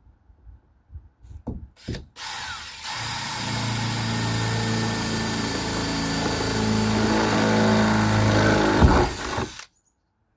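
Electric drill boring a hole through the sheet-steel side panel of a van: a few short starts, then a steady run of about six seconds that stops abruptly.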